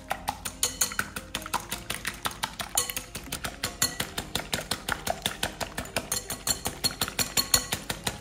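Wire balloon whisk beating eggs in a glass bowl, its wires clinking against the glass in a fast, even rhythm, with light background music.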